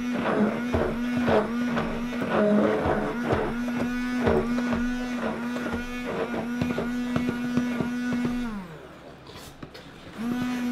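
Stainless steel stick blender running in thick hot process soap in a plastic container, with a steady motor whine that dips as it loads and many knocks as the blender head works through the soap. About eight and a half seconds in it is switched off and winds down, and it starts again near the end in the second container.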